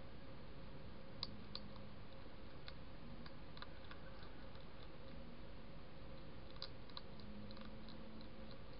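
European hedgehog crunching dry food from a plate: irregular small sharp clicks scattered over a steady background hiss.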